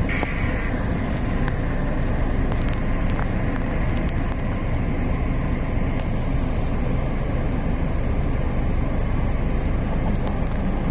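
Steady low rumble of a car driving: engine and road noise, with no breaks.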